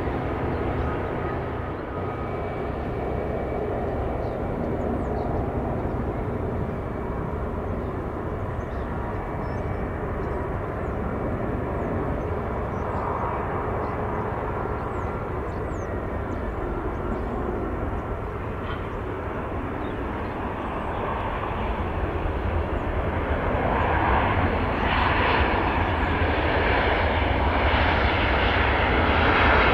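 Airbus A320-211 jetliner on approach to land, its CFM56 engines giving a steady rumble with a faint whine. It grows louder over the last several seconds as it comes closer.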